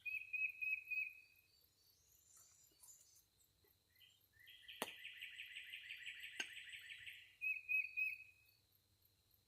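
Songbirds singing: a short series of quick notes at the start, a long fast trill of about three seconds in the middle, and another short run of notes near the end. Two sharp clicks sound during the trill.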